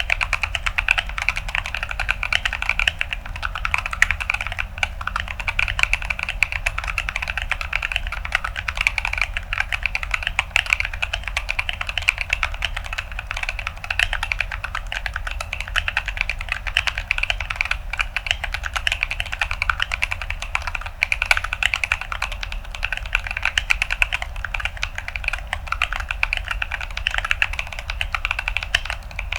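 Continuous fast typing on a mechanical keyboard with Gazzew Boba U4T tactile switches in an acrylic-plate Atlantis AK81ve, dense crunchy key clacks with no pauses.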